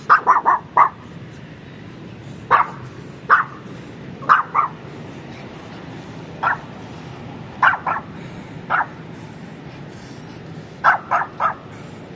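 Pomeranian barking: short, high yaps, sometimes one at a time and sometimes in quick bursts of two to four, every second or two.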